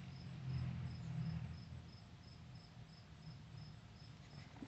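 Faint insect chirping in the background, a short high chirp repeating evenly about three times a second, over a low hum that is strongest in the first second or so.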